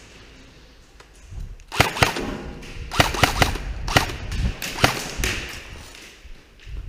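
Airsoft gun firing about eight single shots, sharp cracks at irregular spacing, starting a little under two seconds in and stopping about five seconds in.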